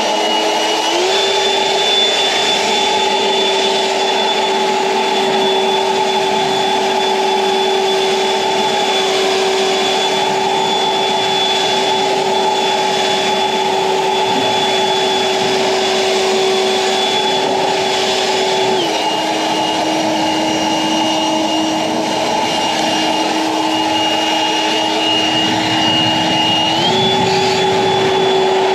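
EGO Power+ 56V LB7650 cordless leaf blower running with a steady fan whine and rush of air. Its speed steps up about a second in, drops about two-thirds of the way through, and rises again near the end.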